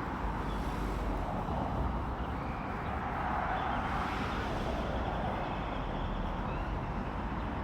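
A car in city traffic: a steady rumble of engine and road noise.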